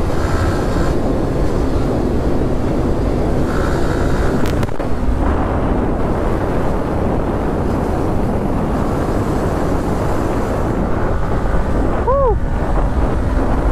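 Yamaha motorcycle running steadily in fifth gear at highway speed, with wind rushing on the microphone and tyre noise from the road. A brief knock comes about four and a half seconds in, and a short tone rises and falls near the end.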